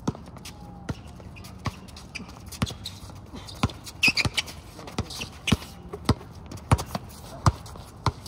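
Basketball bouncing on an outdoor asphalt court: a string of sharp, unevenly spaced thuds, about one every half second to a second, as players dribble, with footsteps scuffing on the court.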